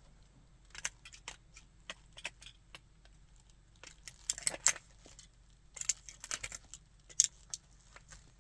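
A model car cracking and crunching under a shoe: a string of small sharp cracks and clicks, busiest about four and six seconds in, with one sharper crack near the end.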